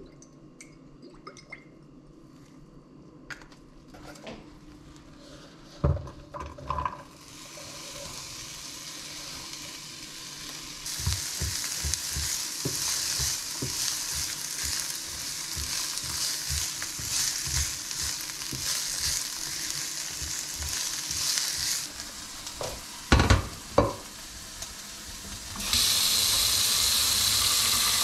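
Diced onion tipped into hot oil in a nonstick frying pan about six seconds in, then sizzling as it fries while a spatula stirs it with quick taps and scrapes against the pan. A couple of sharp knocks come later, and near the end a steady rush of tap water runs into a stainless steel pot.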